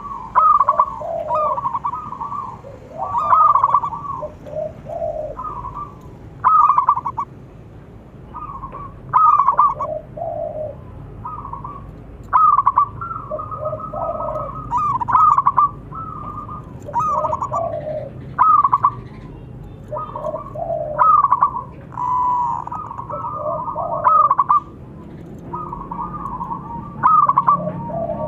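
Zebra dove (perkutut) cooing over and over. A louder rippling phrase comes every two to three seconds, with quieter cooing between.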